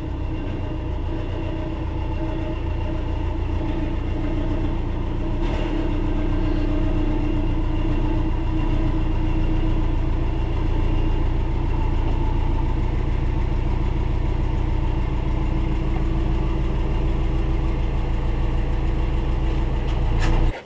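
Subaru Forester's twin-turbo flat-four engine running steadily at low revs, the level building slightly over the first half.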